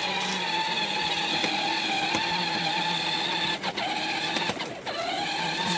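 Battery-powered ride-on toy car's electric motors and gearboxes whining steadily as it drives, set in its low-speed gear. The whine cuts out briefly twice in the second half and then winds back up.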